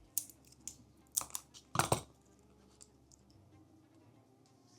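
A few light clicks and taps from handling a CR2032-style coin-cell BIOS battery and multimeter probes while its voltage is checked, the loudest a double tap about two seconds in, then quiet.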